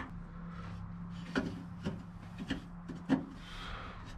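Parts or tools being handled during header fitting: about four short knocks and some rubbing, roughly half a second apart, over a steady low hum.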